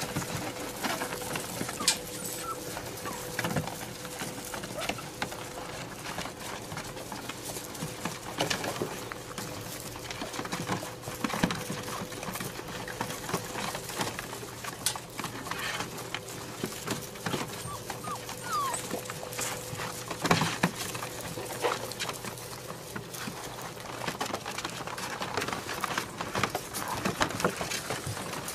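A litter of puppies scrabbling around in a plastic kiddie pool: many quick clicks and taps of paws and claws on the plastic, with a few short high squeaks now and then.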